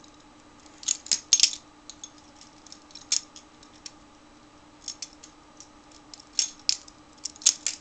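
Balisong (butterfly knife) being flipped: its handles clack against each other and the blade in irregular clusters of sharp metallic clicks, with short pauses between moves.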